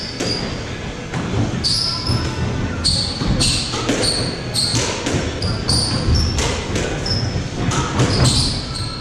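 A squash rally: the ball knocks repeatedly off rackets and the court walls, with frequent short, high-pitched squeaks of players' shoes on the wooden court floor, in a hall that echoes.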